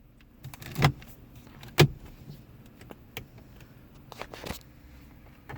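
Plastic dash trim clicking and knocking as the AC control panel is pressed and snapped into place: a sharp snap about a second in, another near two seconds, and a short cluster of knocks after four seconds.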